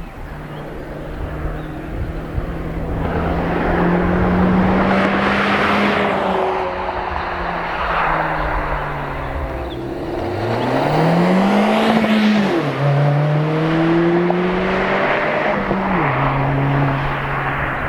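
2022 Honda Civic Si's L15B7 1.5-litre turbocharged four-cylinder, heard from outside as the car drives past. The engine note climbs under acceleration, then falls sharply at a gear change about two-thirds of the way through and again near the end, over a swelling rush of tyre and wind noise.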